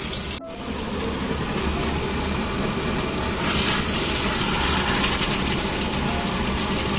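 A steady low mechanical hum with a hiss over it, broken by a short gap about half a second in.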